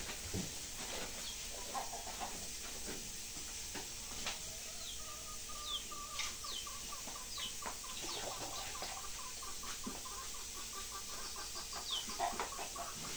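Chickens clucking, with short high chirps scattered through and a long pulsing cluck in the second half.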